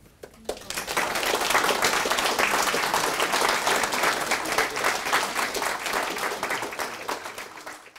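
Audience applauding: the clapping starts about half a second in, builds to full within a second, then slowly dies away near the end.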